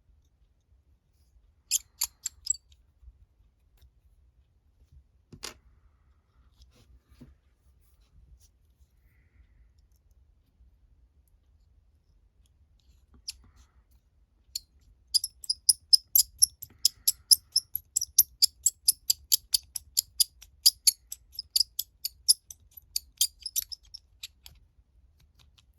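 Small hand drill (pin vise) being twisted to bore a hole in a plastic model wheel: a few isolated clicks, then, about fifteen seconds in, a quick run of crisp scratchy clicks at about four or five a second that lasts some nine seconds.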